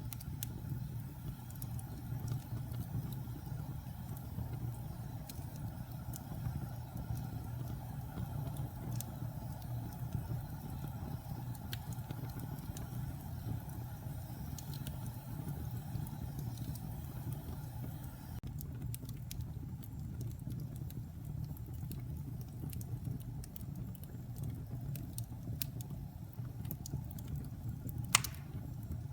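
Log fire burning in a fireplace: a steady low rumble of flame with scattered wood crackles, and one sharp, loud pop near the end.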